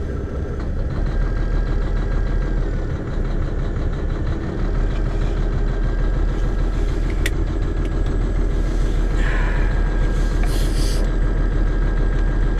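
Mack Pinnacle truck's diesel engine idling cold, moments after a cold start at about minus 16 °C, heard from inside the cab: a steady low rumble, with a thin steady whine joining about a second in.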